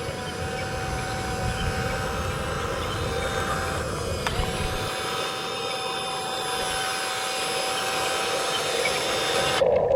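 Heavy construction machine's engine running steadily, with a steady whine over the drone and a short click about four seconds in.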